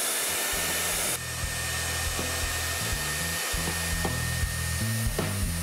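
Handheld electric hair dryer blowing steadily over a wooden box, drying a crackle-finish coat so that it cracks faster. Its rushing hiss carries a faint steady whine and eases slightly about a second in.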